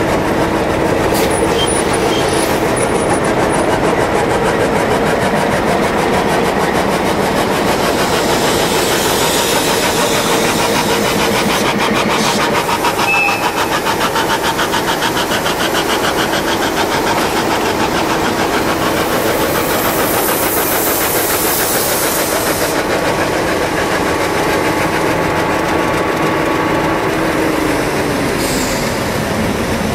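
Narrow-gauge diesel locomotive's engine running steadily close by, with a steady whine over the engine beat. Near the end the whine drops in pitch.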